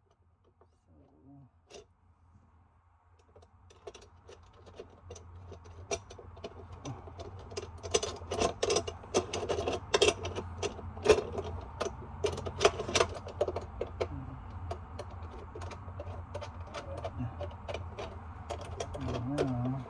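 Small metal parts clinking, rattling and scraping against each other as garbage-disposal mounting hardware is handled and fitted under a sink. It starts a few seconds in as irregular clicks and is busiest in the middle, over a steady low hum.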